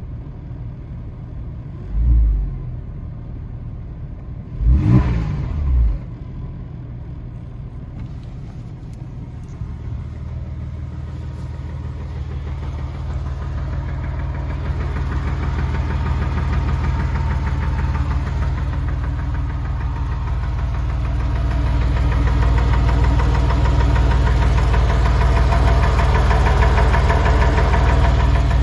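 Porsche 996 Carrera 4 Cabriolet's flat-six engine, hot after a 40-minute drive, running at idle with an abnormal fast rhythmic knocking rattle that grows steadily louder through the second half. There is a thump about two seconds in and a brief rising-then-falling engine surge around five seconds.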